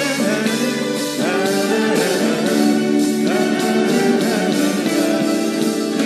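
Live band music with drums and an orchestral backing, playing an instrumental passage between sung verses, with a guitar-led melody whose notes bend up and down.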